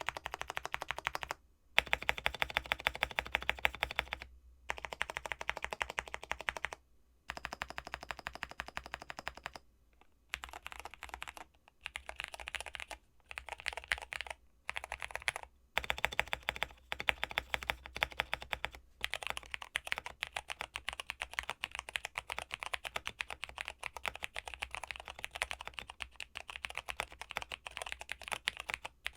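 Fast typing on a mechanical keyboard with Cherry MX Purple switches, unlubed, in a tape-modded Zuoya GMK67 with Cherry-profile keycaps: dense runs of keystrokes broken by brief pauses.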